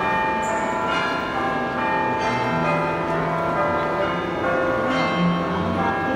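Bell music: chimed notes struck every second or so, each ringing on and overlapping the next.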